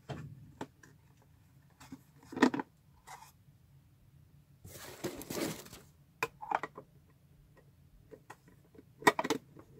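Plastic bento box parts being handled and fitted together: scattered clicks and taps, with two sharp knocks, one about two and a half seconds in and one near the end, and a longer, softer noise midway.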